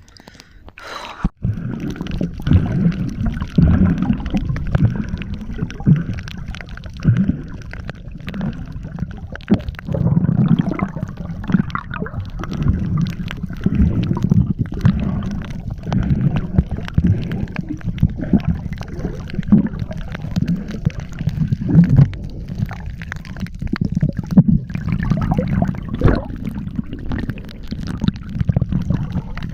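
Water gurgling and rushing around a camera in the water, with frequent small knocks, starting abruptly about a second in.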